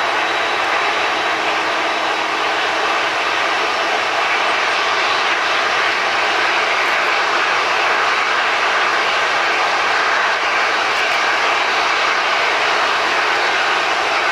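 Jet airliner engines running, a loud and steady roar close by.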